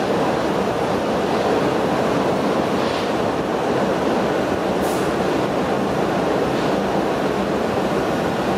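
Berlin U-Bahn type F79 car running through a tunnel, heard from inside the passenger compartment: a steady rumble of wheels on rails and running gear. There is a brief high hiss just before five seconds in.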